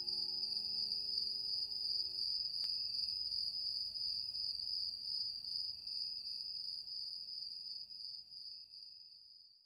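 Crickets chirping, a steady high trill. The last held notes of the music die away about two seconds in, and the crickets fade out near the end.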